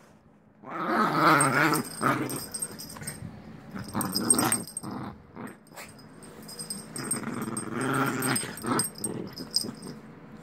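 Maltese puppy growling in play, in three long growls with shorter ones between.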